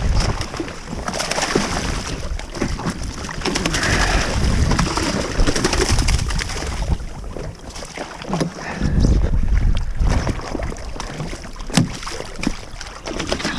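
Wind buffeting the microphone in gusts, with water sloshing around a jet ski at sea and scattered knocks and clicks.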